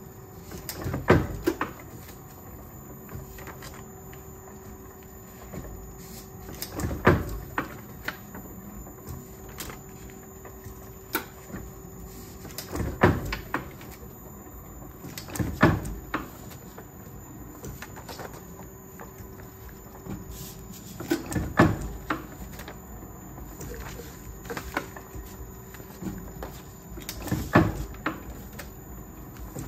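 Letterpress platen press with a foil-stamping roll running, its platen and linkage clanking shut in a cluster of heavy metal knocks every few seconds as each impression is made, over a faint steady hum.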